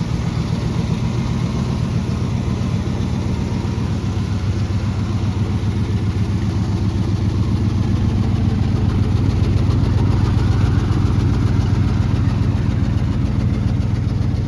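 Chevy 350 small-block V8 in a 1987 Silverado pickup idling steadily.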